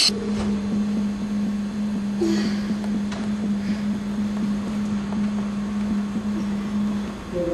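A steady low hum, a single held tone, that cuts off about seven seconds in.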